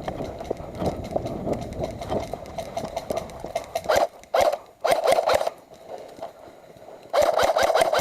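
Airsoft electric guns firing short full-auto bursts, each a fast rattle of shots over the buzz of the gearbox, with a longer burst near the end. Before them, about half-way in, there is rustling and scuffing of movement.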